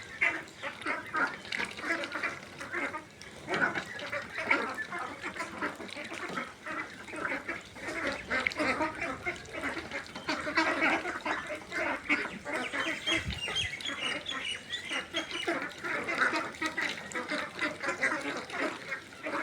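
A flock of young ducks, about seven weeks old, quacking continuously, with many calls overlapping.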